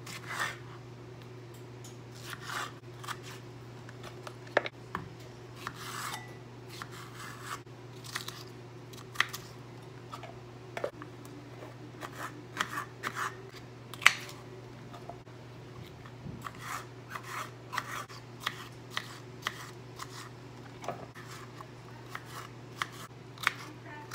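Small kitchen knife chopping salad vegetables (tomato, bell pepper, radish) on a bamboo cutting board: irregular knife cuts and taps on the wood, with a steady low hum underneath.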